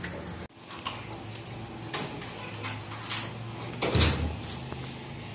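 A metal gate and a door being handled as someone walks through, with scattered clicks and knocks and a louder, deeper bump about four seconds in.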